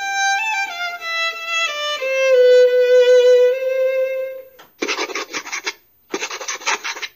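Violin sound effect from a children's phonics program, heard through laptop speakers: a short phrase of notes stepping downward and ending on a long held note. It is followed by two scratchy strokes of a marker drawing, each about a second long.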